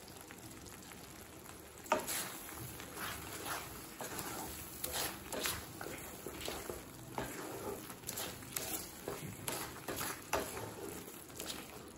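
A spatula stirring thick bread halwa in a kadai, scraping and clicking irregularly against the pan from about two seconds in, as the ghee, cashews and raisins are mixed in.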